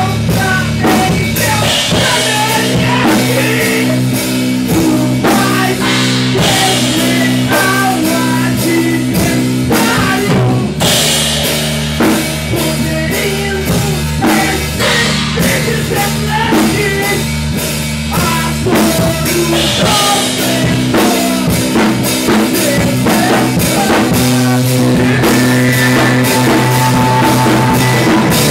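Rock band playing live and loud in a small room: drum kit with cymbal crashes, electric guitars and bass, settling into a steady held chord in the last few seconds.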